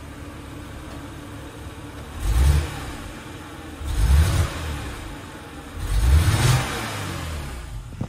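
2006 BMW X3 (E83) straight-six petrol engine idling, then revved briefly three times, about two, four and six seconds in. The engine has an active misfire on cylinder number 3, confirmed by a fault code.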